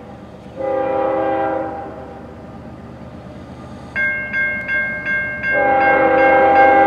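Diesel locomotive's multi-chime air horn blowing a long blast, then a second blast starting about five and a half seconds in and held, as the train approaches a grade crossing. From about four seconds in, a bell rings a few strokes a second.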